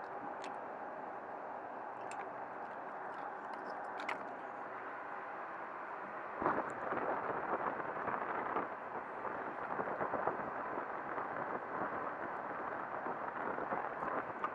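A few light clicks of a combination cable lock being worked free over a steady background hum. About six seconds in, a louder rough crunching of gravel starts as the bike is wheeled across it.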